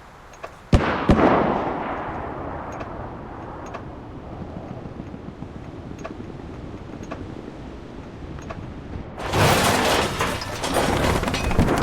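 War video game's combat sound effects: sharp shots and a blast about a second in, then a long fading rumble with scattered faint distant shots, and loud dense battle noise from about nine seconds in.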